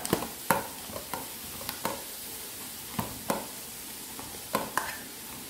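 A steel bowl pressed and scraped against a steel plate while mashing hot rice-flour dough: irregular clinks and knocks of metal on metal, roughly two a second, over a steady hiss.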